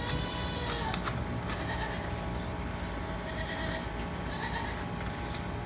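Livestock bleating in short calls, at the start and again about four seconds in, over a steady low hum.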